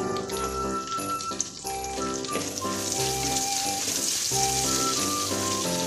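Sliced shallots frying in hot coconut oil in a clay pot, a steady sizzle that grows louder about halfway through as they are stirred in. Background music plays over it.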